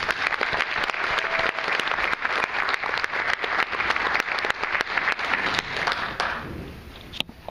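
Audience applauding with dense clapping that dies away about six seconds in, just before a brass band piece starts.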